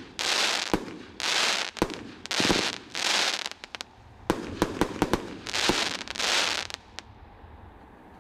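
Consumer fireworks cake 'Vanilla Sky' firing a string of shots: sharp pops, each followed by about half a second of hissing crackle. Several quick pops come close together about four to five seconds in, and the firing stops about seven seconds in.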